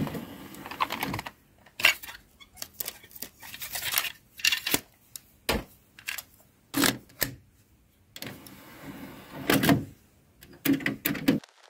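A series of separate mechanical clicks and clunks with short rattles between them, irregularly spaced, stopping suddenly just before the end.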